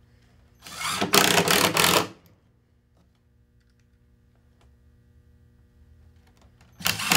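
Cordless impact driver driving a screw into wood. It runs in one rattling burst of about a second and a half, then starts on the next screw near the end.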